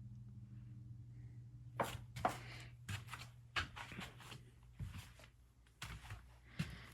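Footsteps and small knocks: a string of irregular short thuds and clicks starting about two seconds in, over a steady low hum.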